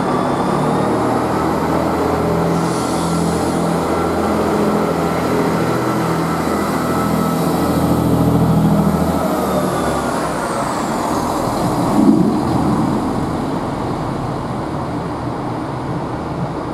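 Two-car Class 158 diesel multiple unit pulling away, its underfloor diesel engines running under power with a high whine over them, loudest as the coach passes. About ten seconds in, the engine note drops and the whine falls away. A single clunk follows about two seconds later.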